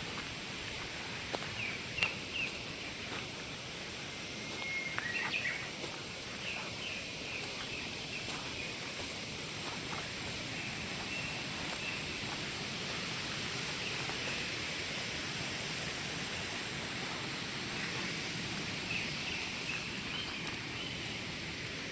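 Outdoor woodland ambience: a steady background rush with short bird calls scattered through, and a few sharp clicks in the first few seconds.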